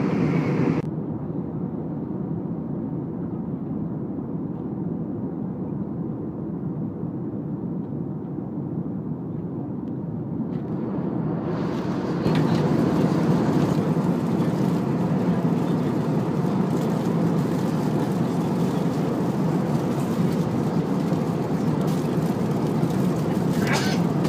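Steady rumble of an Airbus A321's engines and airflow heard inside the passenger cabin. It drops back just under a second in, then grows louder and fuller about twelve seconds in.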